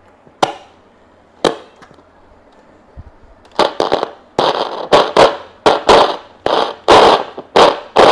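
Loud crackling and popping from a Sanyo radio-cassette recorder's speaker as a control knob is turned, the scratch of a dirty potentiometer. It starts with a few single sharp clicks, then about three seconds in comes a quick run of louder crackles.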